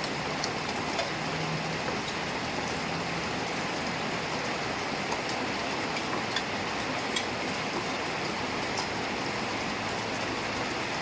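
Heavy rain falling steadily, a dense hiss of rain on surfaces with scattered sharp drip clicks.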